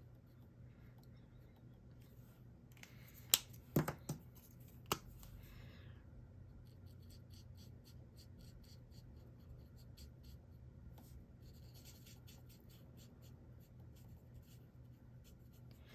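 Faint scratching of a blending marker tip rubbed over paper in short, quick strokes while colouring a stamped flower, with a few sharp clicks about three to five seconds in.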